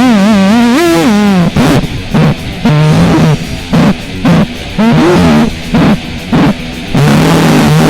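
Loud homemade noise music with a guitar-like sound: a wavering pitched tone, then short choppy stabs broken by gaps, and a held low note near the end.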